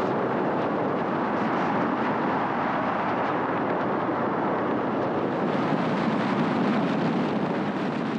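Steady rushing of wind and road noise from a pickup truck towing a travel trailer at highway speed, heard from a camera held out the passenger window. It cuts in suddenly at the start.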